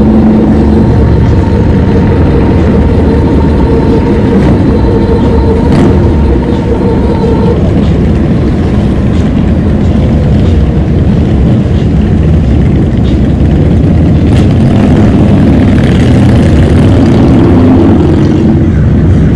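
Heavy wind buffeting on a GoPro action camera's microphone while riding an e-bike: a loud, steady rumble. A faint steady whine runs under it for the first seven seconds or so.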